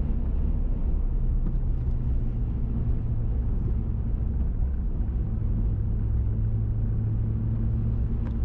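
Steady engine drone and road noise inside a moving vehicle's cabin, an even low rumble with one held low hum.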